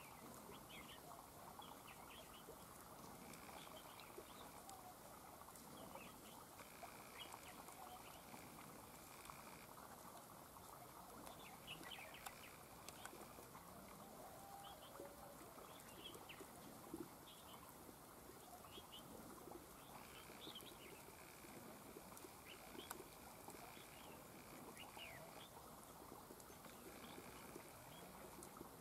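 Faint short chirping calls of red-whiskered bulbuls, scattered irregularly throughout, over a steady high buzz that starts and stops every few seconds.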